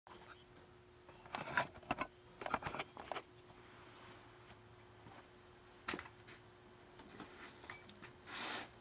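Handling noise as a camcorder is moved and set in place: scattered clicks, knocks and rustles, in clusters over the first three seconds and again near the end, over a faint steady hum.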